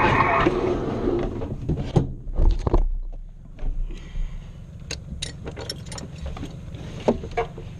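A glider's canopy is unlatched and swung open, with rattling clicks and knocks and a dull thump about two and a half seconds in, then scattered small clicks. Before that, the rushing noise of the glider rolling to a stop dies away.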